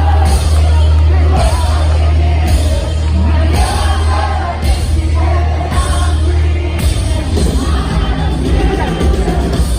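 Music with singing over a heavy, sustained bass and a high swell repeating about once a second. The bass drops out about seven seconds in.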